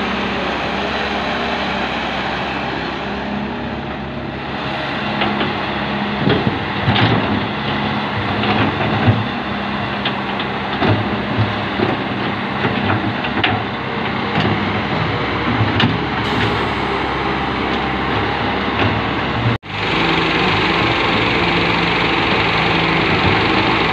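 John Deere 595D wheeled excavator's diesel engine running steadily as it digs. Short knocks and clatter of soil and stones against the bucket come from about 6 to 16 seconds in. The sound drops out for an instant about 20 seconds in, then the engine noise carries on.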